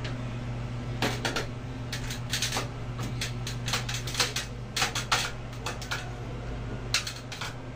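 Irregular sharp clicks and light metallic clinks, single and in quick clusters, as small metal parts are handled, over a steady low hum.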